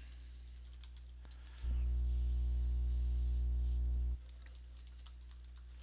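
A steady low electrical hum with a buzzing edge, much louder for about two and a half seconds in the middle, with a few faint keyboard clicks.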